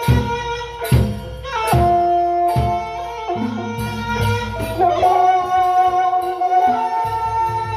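Bamboo suling flute playing a slow, mournful melody of long held notes that step up and down in pitch. Low drum beats fall about once a second and stop about three seconds in.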